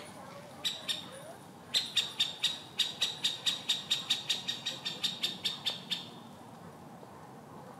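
A bird giving sharp clicking calls: a few scattered ones, then a fast run of about five a second for some four seconds that fades out.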